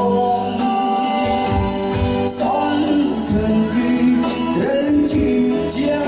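Band music with a singer over a regular drum beat.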